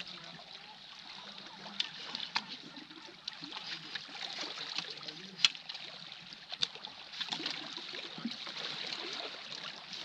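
Small sea waves lapping and trickling against shoreline rocks, with a few sharp clicks and taps scattered through, the loudest about five seconds in.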